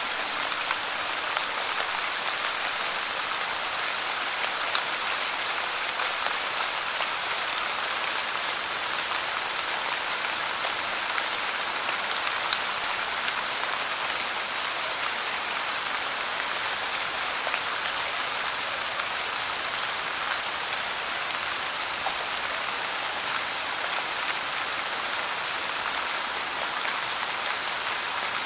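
Light rain falling steadily, an even hiss of many small drops.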